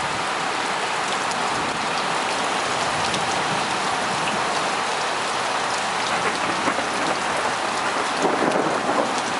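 Heavy thunderstorm rain pouring steadily.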